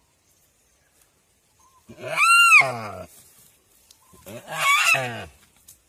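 Rusa deer bleating in distress while a Komodo dragon eats it alive: two loud calls a couple of seconds apart, each about a second long, rising in pitch and then falling away. The second call is harsher.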